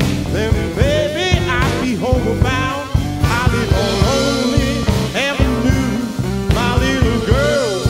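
Blues band playing an instrumental passage: drums and bass keep a steady beat under a lead line of bending, sliding notes.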